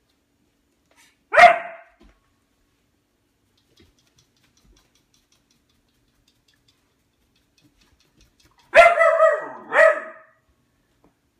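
Dog barking at its food bowl to demand food: a single sharp bark about a second in, then after a long pause a quick run of about three barks near the end.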